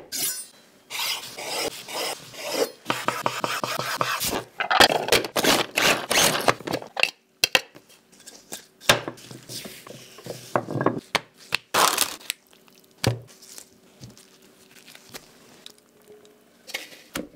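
Close-up food-preparation sounds. For several seconds there is crackly rubbing and scraping while a slice of white bread is handled with a knife. Then come scattered scrapes and knocks at a plastic food-processor bowl of breadcrumbs, and a short pour of beaten egg near the end.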